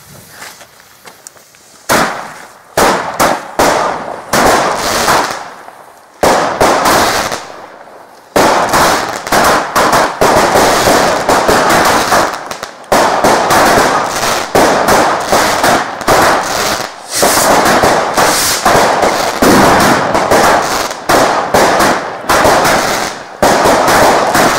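Firecrackers going off: after a quiet start, a handful of separate sharp bangs, then from about eight seconds in a dense, nearly continuous run of rapid bangs.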